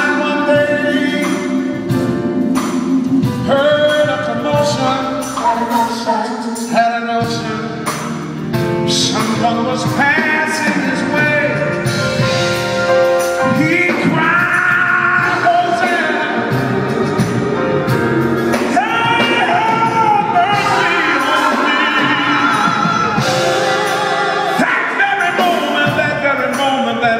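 Gospel music: several voices singing together in harmony, with a male voice among them, over instrumental accompaniment.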